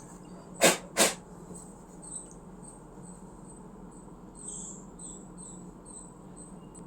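Two short, loud noisy bursts close together about a second in, then a faint high chirping that pulses about two or three times a second.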